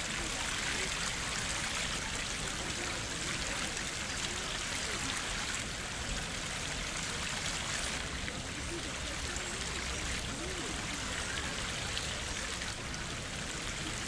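Steady rush of running water flowing into a pond, with faint voices in the background.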